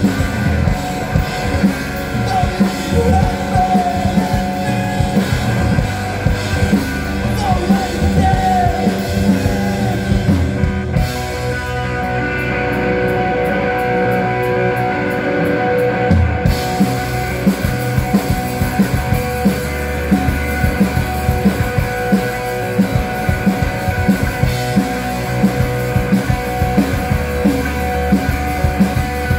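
Live rock band playing electric guitars and drum kit, with sung vocals through the first part. About eleven seconds in the cymbals stop for some five seconds, then the full kit comes back in.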